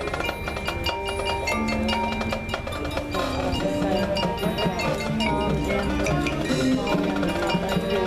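High school marching band playing its field show, with the front ensemble's mallet percussion (marimbas and bell-like keyboards) and struck percussion to the fore over the band's parts. It grows louder about three seconds in.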